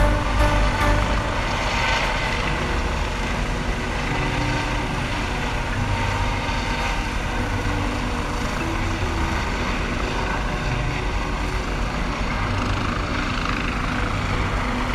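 Helicopter hovering close by, a steady, even rotor and engine noise.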